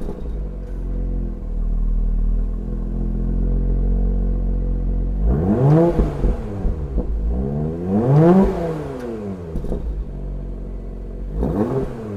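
Porsche Macan GTS twin-turbo V6 idling and revved three times, the exhaust note rising and falling in pitch with each blip: once about five seconds in, again about eight seconds in, and briefly near the end. Heard from inside the cabin.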